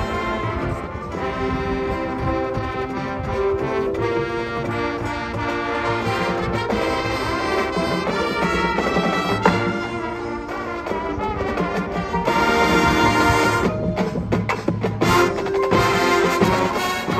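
High school marching band playing, brass chords held over percussion. The band swells louder about three-quarters of the way through, then a few sharp percussion hits punctuate the music.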